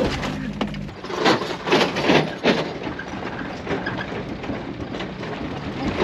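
Small car driving slowly on a rough dirt road, with a quick run of four or five loud knocks and rattles between about one and two and a half seconds in, then a steadier rumble.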